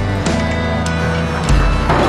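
Soundtrack music with a steady drum beat over a bass line.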